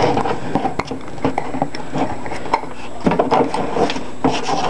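Close handling noise: irregular clicks, knocks and rubbing scuffs as something is handled, most likely the airsoft rifle scope being picked up and turned over.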